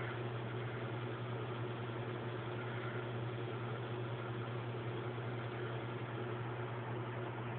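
Steady low hum under an even hiss, like a running fan or appliance, unchanging throughout.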